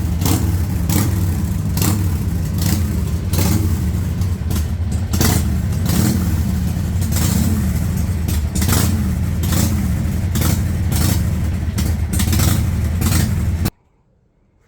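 2004 Harley-Davidson Sportster's air-cooled V-twin engine running at idle just after starting, its pitch rising and falling slightly with a lumpy, clattery beat. The sound cuts off suddenly near the end.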